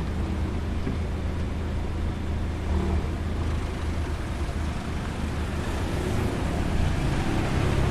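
Steady road traffic on a high-speed road: a continuous rush of passing cars' tyres and engines over a low engine hum, growing slightly louder near the end.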